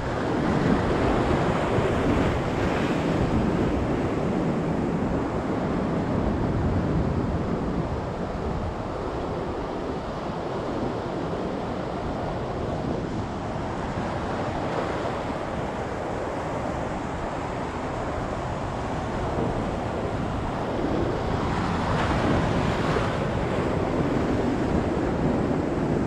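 Rough sea surf breaking and washing over shore rocks, with wind buffeting the microphone. The surf swells louder about two seconds in and again near the end.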